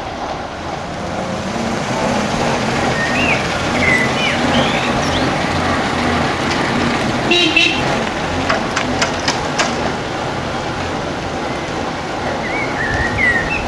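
Vintage vehicle engine running steadily, with short bird chirps over it and a few sharp clicks about halfway through.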